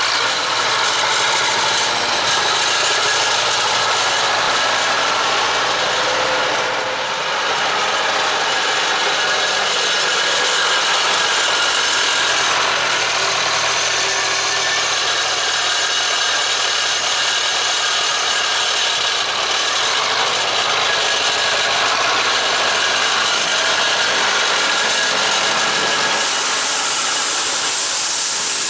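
Zetor 7011 tractor's diesel engine running steadily close by: a loud, even mechanical din with a rasping edge.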